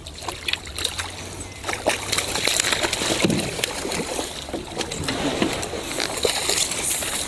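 Water splashing and lapping against the hull of a small aluminium boat, with small knocks and clicks of tackle being handled; the splashing grows louder about two seconds in.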